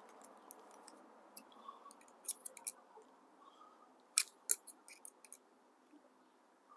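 Handlebar stem bolts being tightened by hand: a scatter of small, sharp clicks and ticks from the tool and hardware, the loudest about four seconds in.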